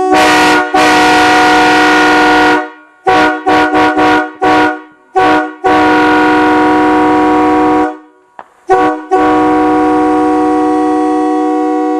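Multi-chime locomotive air horn sounding a chord in blasts: one long blast of about two and a half seconds, then a quick run of short toots, then two long blasts, each led by a short toot, with echo after the blasts.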